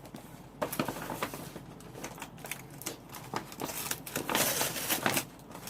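Packaging rustling and crinkling as a parcel is handled and opened, in short, irregular crackles, busiest about four to five seconds in.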